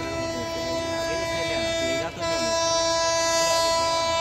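Electric locomotive's horn blown in one long, steady note as the train approaches, with a brief break about two seconds in, after which it sounds a little louder.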